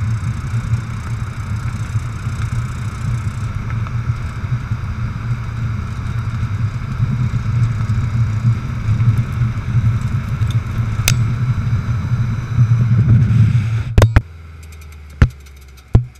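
2004 Subaru Impreza WRX STI's turbocharged flat-four running with a steady low rumble, heard from under the car, the owner unsure whether the odd noise is the transmission or the clutch. Near the end the rumble drops off suddenly with a couple of sharp clicks, followed by a few single sharp knocks.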